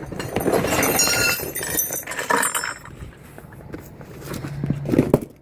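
Scooter parts being unpacked: metal pieces clinking and rattling against each other amid a noisy clatter of packaging, then a second burst of knocks near the end.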